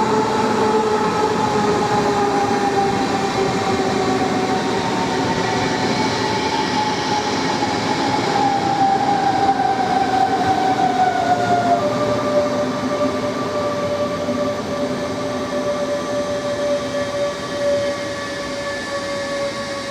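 DB class 424 S-Bahn electric multiple unit's traction drive whining over rolling noise: its tones glide slowly down in pitch as the train slows, then about twelve seconds in switch with a step to a steadier, lower tone.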